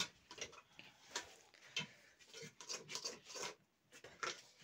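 Scattered light clicks and knocks of handling: a plate, cup and phone being moved about and set down, coming irregularly a few times a second.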